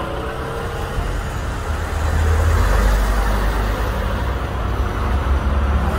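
Road traffic going by: cars passing close on the street with a steady low engine and tyre rumble that swells about two seconds in and again near the end.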